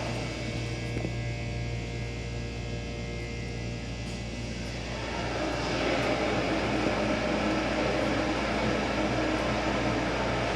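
Elevator hoist machinery humming with a cluster of steady whining tones, then about five seconds in a louder, rougher running noise as the machine starts moving a car.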